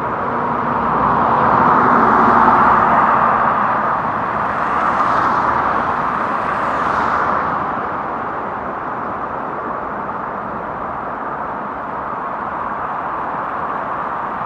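Vehicles on a rain-soaked road: a steady wet hiss, with two louder tyre swishes in the first half as vehicles pass.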